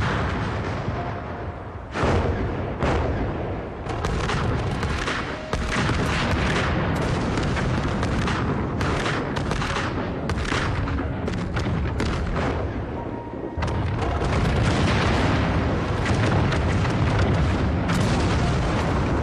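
A long chain of explosions, blast after blast, over background music. It starts about two seconds in and gets louder in the last few seconds.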